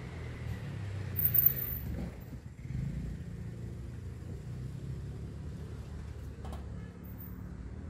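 Low steady rumble of a motor vehicle engine in the street, with a brief loud knock about a second and a half in and a short click near the end.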